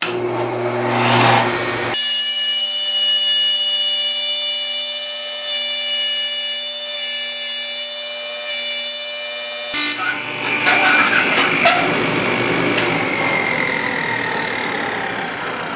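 Table saw with an Oshlun 8-inch 42-tooth dado stack starting up and being raised through a laminate-flooring zero-clearance insert: a really noisy, steady high whine of the blades cutting for about eight seconds. Near the end the whine falls in pitch as the dado stack spins down.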